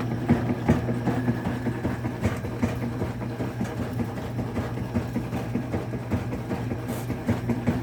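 Washing machine running and shaking hard, a steady low motor hum with a busy, uneven clatter of knocks and rattles on top, which the owner hears as a rhythm-and-blues groove.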